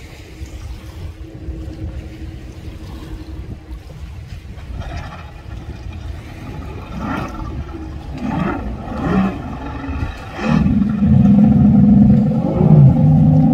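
Speedboat's outboard motor ticking over quietly under wind noise on the microphone, then revving up several times from about five seconds in and running loud at high throttle from about ten and a half seconds in as the boat accelerates away.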